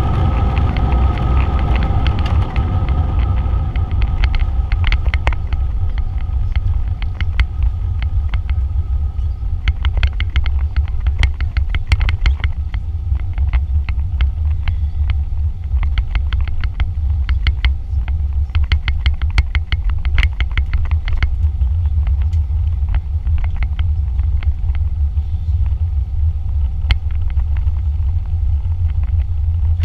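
Cabin noise of a Boeing airliner on its landing rollout: a steady low rumble of the wheels on the runway, with the jet engines' whine fading over the first several seconds. Scattered rattles and clicks run through the middle.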